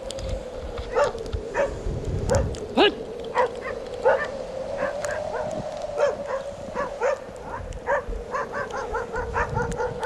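An animal yelping in short repeated calls over a continuous wavering whine. The yelps come more often toward the end, about two a second. Wind rumbles on the microphone in gusts.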